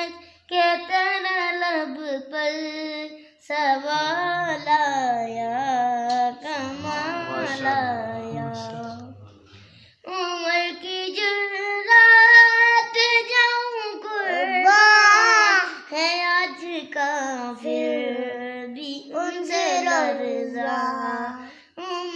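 A young boy singing a naat, an Urdu devotional poem in praise of the Prophet, solo and unaccompanied, in long wavering, ornamented melodic lines. He breaks off briefly about halfway through, then goes on.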